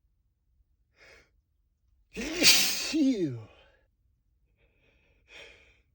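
A man sneezes once, loudly, in a sneezing fit: a faint breath in about a second in, then the sneeze, whose voiced 'choo' falls in pitch. Another faint breath comes near the end.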